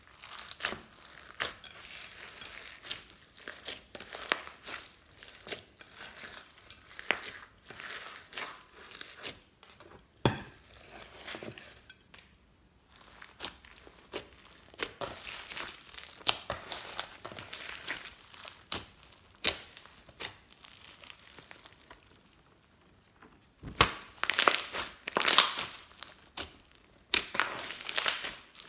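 Hands kneading, stretching and squeezing slime packed with glitter, sequins and small beads, making a run of irregular crackles and squishes. There is a short lull about twelve seconds in, and the loudest crackling comes near the end.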